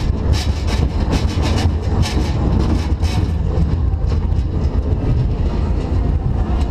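Roller coaster car running along its steel track: a steady low rumble of the wheels on the rails, with rapid clattering clicks that are densest in the first three seconds.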